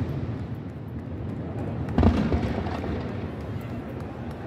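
Aerial fireworks going off: one loud bang about two seconds in, its low rumble fading afterwards, over a faint background of distant bangs and crackle.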